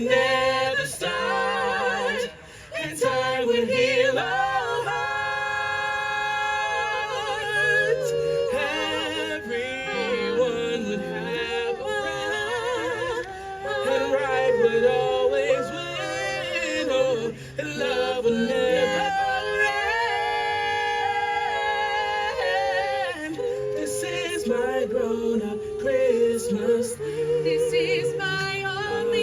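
Vocal group singing in harmony, several voices holding long chords with vibrato, with short breaks about two seconds in and past the middle.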